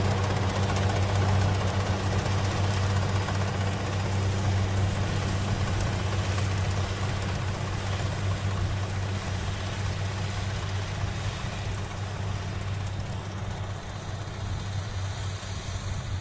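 Kubota DC-93 rice combine harvester's 93-horsepower diesel engine running steadily under load while cutting and threshing, with a steady low hum, slowly fading as the machine pulls away.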